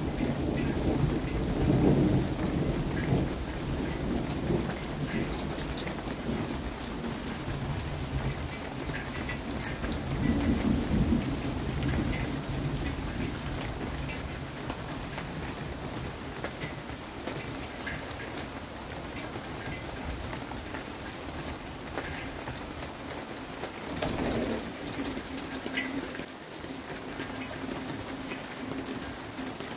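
Thunder rumbling over steady rain, with drops pattering and dripping. The loudest roll of thunder comes about two seconds in, another around ten to eleven seconds in, and a shorter one about twenty-four seconds in.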